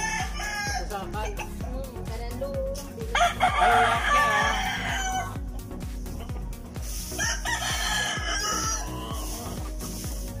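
Roosters crowing: a long crow about three seconds in, the loudest sound here, and another about seven seconds in, each lasting around two seconds. Background music with a steady beat plays underneath.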